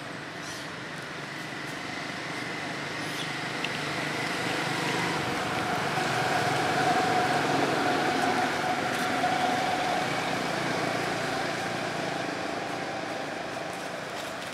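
A vehicle passing by: a steady engine noise that slowly swells to its loudest about halfway through and fades away near the end.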